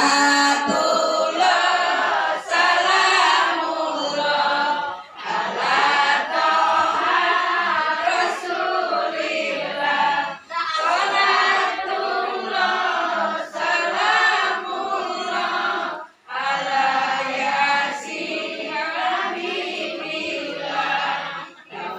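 A group of women singing together in long phrases with brief pauses between them.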